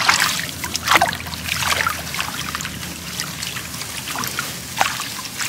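A person's legs wading through shallow paddy water, sloshing and splashing in uneven strokes: the loudest splashes come at the start and about a second in, with another near the end.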